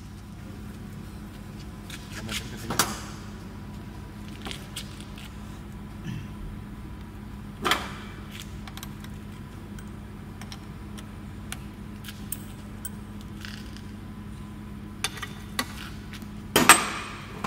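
Sharp metallic clinks and knocks of steel tools being handled and set at a lathe's tool post and compound rest, a few scattered hits with the loudest one near the end, over a steady machine hum.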